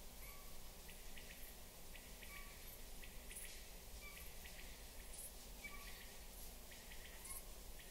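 Faint nature ambience: short animal calls repeating roughly once a second, with light clicks and brief high chirps over a low steady background.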